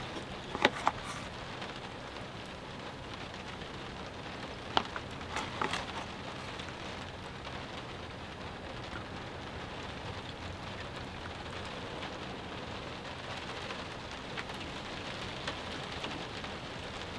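Steady rain falling on the truck bed's camper shell, heard from inside, with a few light taps and clicks about a second in and around five to six seconds in.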